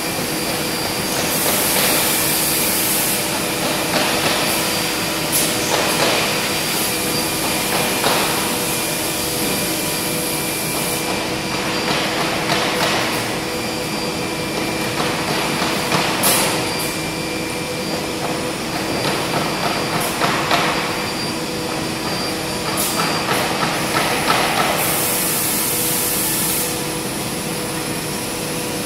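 Six-sided CNC panel drilling machine running: a steady machine hum with a few held tones, broken every few seconds by short drilling bursts and clicks. There are two longer high hisses, one about a second in and one near the end.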